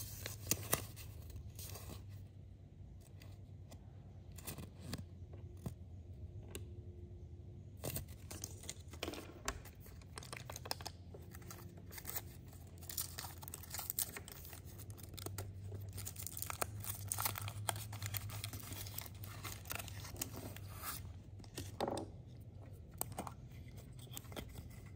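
Thin foil wrapper of a Zaini chocolate egg crinkling and tearing as it is peeled off by hand, with paper rustling and many small crackles. Near the end, a plastic toy capsule is pulled open with light clicks.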